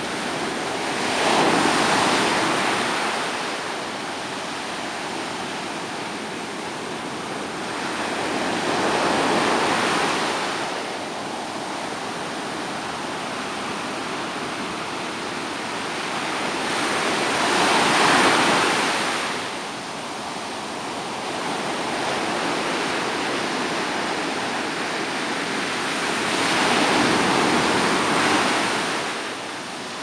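Stormy sea surf: waves break in four surges roughly every eight to nine seconds, with a steady rush of water between them.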